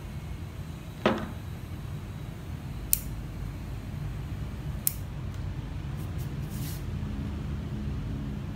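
Scissors snipping bonsai wire: two sharp clicks about two seconds apart, then a few fainter ones, after a louder knock about a second in. A steady low hum runs underneath.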